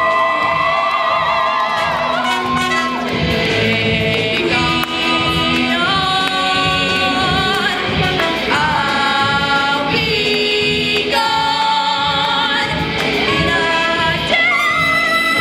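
Live rock band playing a song with a female lead singer, electric guitars, bass, drums and trumpet and trombone, heard through a hall's sound system.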